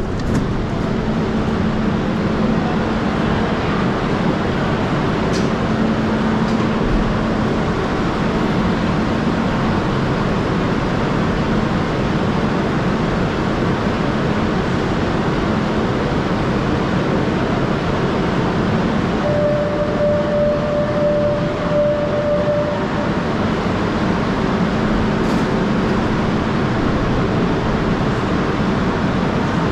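Metro train standing at an underground station platform, its equipment giving a loud, steady hum and rush. About twenty seconds in, a steady single-pitched warning tone sounds for about three seconds as the doors are about to close.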